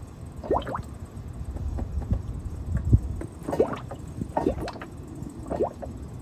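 Motor oil gurgling and glugging: a few irregular short gulps, each rising quickly in pitch, over a low steady rumble.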